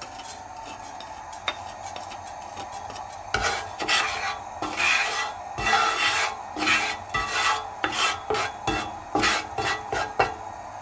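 Wooden spatula scraping and stirring cumin seeds around in oil in a nonstick frying pan. The strokes start about three seconds in and repeat at roughly two a second.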